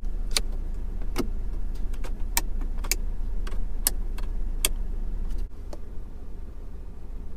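Sharp plastic clicks from a Hongqi H6's dashboard air vent as its louvre tab and vent buttons are worked, about a dozen clicks over the first five seconds. A steady low hum runs underneath and drops in level about five and a half seconds in.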